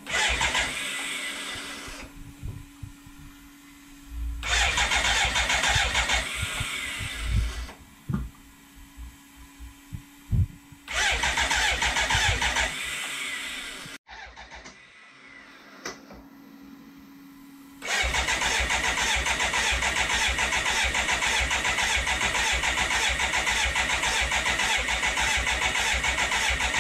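BMW K100's electric starter cranking its fuel-injected four-cylinder engine in three short bursts, then one long steady spell, without it catching. A steady low hum runs in the pauses between attempts. The engine is not getting enough fuel, which the owners put down to a crushed fuel-pump hose.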